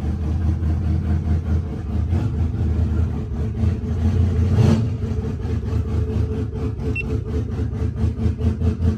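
Chevrolet Impala with a loud aftermarket exhaust, its V8 idling with a steady deep rumble and one short louder moment about halfway through. Rowdy.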